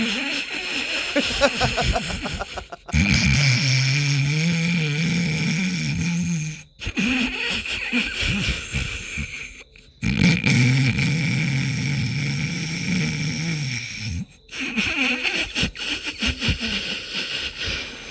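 Snoring: two long, low, drawn-out snores of about three seconds each, with rougher shorter snorts between them, broken off by abrupt cuts.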